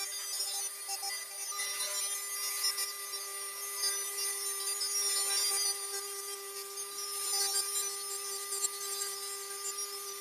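Dremel rotary tool on a flexible shaft running with a steady whine while its small burr grinds lines into the wooden bowl. A scratchy grinding noise rises and falls as the bit is drawn along the wood.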